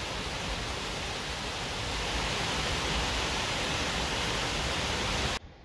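Waterfall rushing down a rocky gorge, a steady full roar of falling water that cuts off suddenly near the end.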